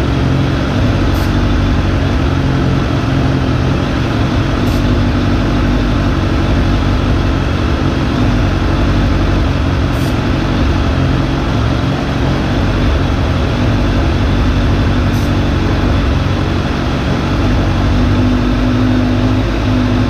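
Suzuki GSF600 Bandit's carbureted inline-four engine idling steadily during a starter-fluid vacuum leak test at the carburetor intake boots, with a few short hisses of spray. Its idle mixture screws are set rich, at three turns out instead of the stock 1 7/8.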